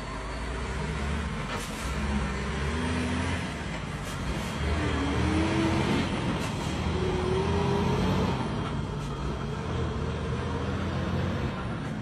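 Loaded Dongfeng heavy dump truck driving past, its diesel engine running steadily over tyre and road noise, with a few short rising whines in the middle.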